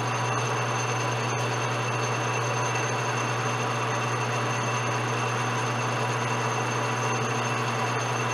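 Metal lathe running with its four-jaw chuck spinning and the tool not cutting. It makes a steady machine hum with a faint high whine over it.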